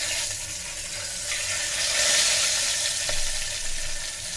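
Boiled eggs sizzling in hot oil, seasoned with salt and turmeric, inside an electric kettle: a steady frying hiss that swells a little about two seconds in.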